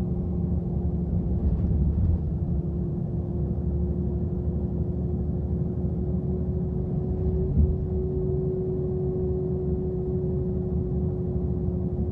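Bus cabin at cruising speed: steady engine and road rumble with a steady whine running over it. A single knock about seven and a half seconds in.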